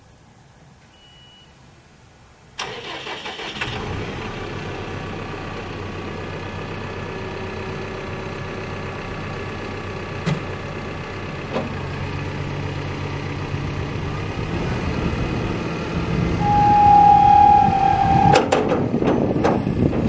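A CAT backhoe's diesel engine starts suddenly about two and a half seconds in and settles into a steady idle, growing slightly louder later on. Near the end a loud steady tone sounds for under two seconds, followed by a few sharp knocks.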